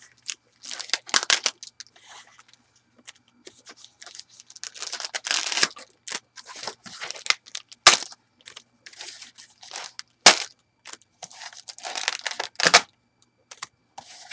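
Baseball card pack wrappers being torn open and crinkled by hand, irregular rustling and tearing with a few sharp crackles.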